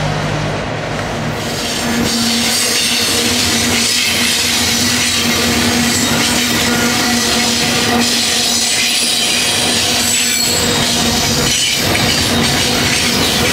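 Double-stack intermodal container train rolling past at speed: a steady, loud rumble and rattle of the well cars' wheels on the rails with a constant whine over it. It grows louder about two seconds in.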